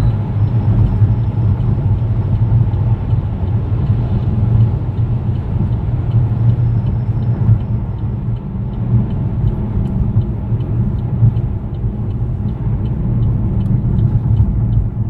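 Vauxhall Mokka running with a steady low rumble, joined about halfway through by a faint regular ticking, a few ticks a second. This is the strange noise that the owner, not sure, places at the back wheels.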